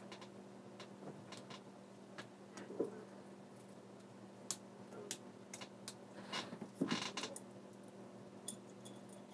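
Faint, scattered clicks and taps of a plastic mirror housing and its circuit board being handled and fitted back together, with a cluster of louder clicks about seven seconds in. A steady low hum runs underneath.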